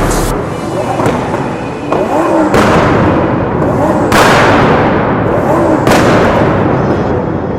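Twin-turbo Lamborghini Huracán V10 exhaust firing off loud bangs and crackles, the anti-lag pops of a flame-shooting exhaust. Three sudden loud bursts come about a second and a half apart, each trailing off in crackling over more than a second.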